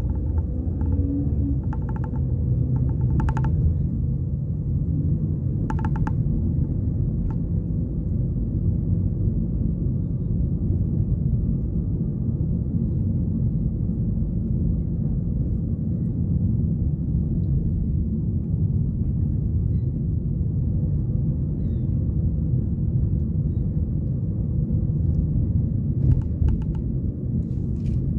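Steady low rumble of a car's road and engine noise heard from inside the cabin while driving, with a few brief higher sounds near the start and again near the end.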